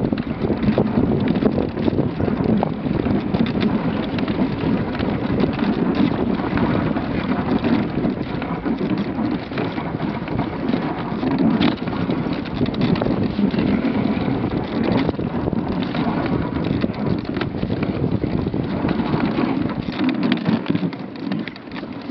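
Dog sled runners sliding over snow: a steady rushing noise full of small crunches, with wind on the microphone.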